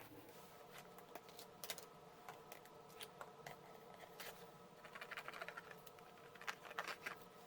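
Faint handling of cardstock and craft pieces on a table: scattered light taps and clicks, with short paper rustles about five seconds in and again near the end, over a faint steady hum.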